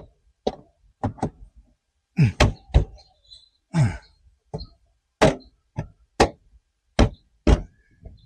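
About a dozen sharp knocks and thunks at uneven intervals: the plastic body panels of a Can-Am Spyder RT being pushed and tapped into their snap clips.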